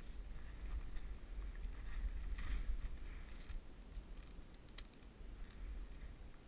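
Low rumble on an action camera's microphone, with rustling in the middle and one sharp click about three-quarters of the way through.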